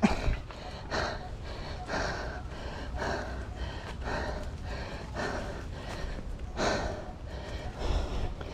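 A mountain biker breathing hard through his mouth in a quick, even rhythm from the effort of pedalling up a steep technical climb, with a low rumble underneath.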